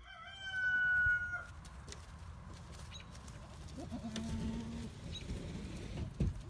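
Farm animals calling: one long, high-pitched call lasting about a second near the start, then quieter, lower calls and a few faint knocks.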